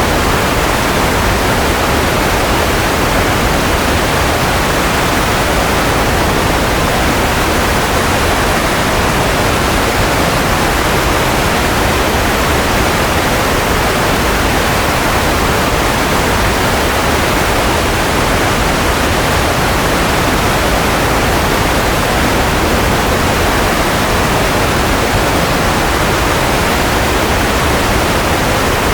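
Steady synthetic white noise: an even, unbroken hiss with no tones, rhythm or changes, somewhat fuller in the low and middle pitches.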